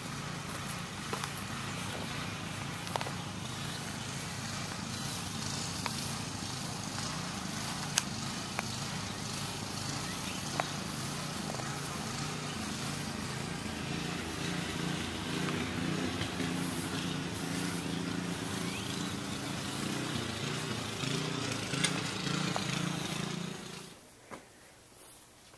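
A small engine running steadily outdoors, its pitch wavering and rising in places, with a few sharp clicks over it; it cuts off about 24 seconds in.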